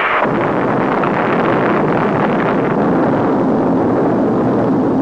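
A loud, steady rushing noise without pitch. Just after it starts it shifts from a higher hiss to a fuller, deeper rush, and it holds level throughout.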